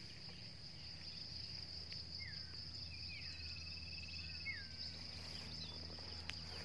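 Evening insect chorus: a steady high-pitched shrilling of crickets, with a trill joining in the middle. A few short falling chirps sound over it, about four times.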